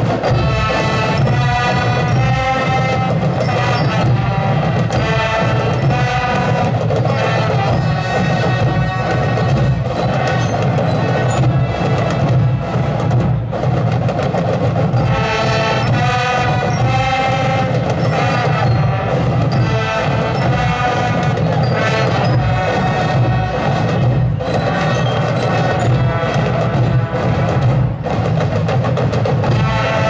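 School marching band playing a piece, brass instruments over drums and other percussion, loud and continuous.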